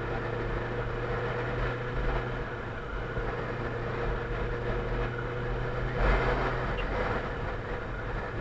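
Motorcycle engine running steadily at cruising speed, with tyres hissing on a wet road. A louder rush of noise swells up about six seconds in.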